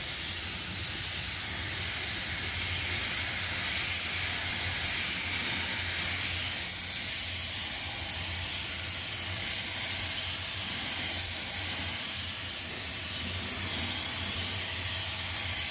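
Compressed-air paint spray gun spraying thin coats of silver paint onto a truck trailer's steel wheel: a steady hiss of air and atomised paint, with a steady low hum underneath.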